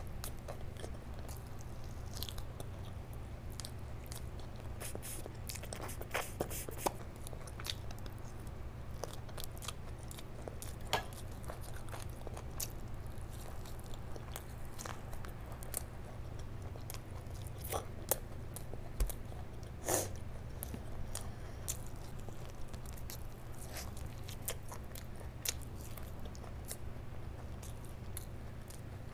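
Close-miked mouth sounds of someone eating bone-in chicken curry and rice by hand: chewing and biting, with scattered sharp clicks and smacks. A steady low hum runs underneath.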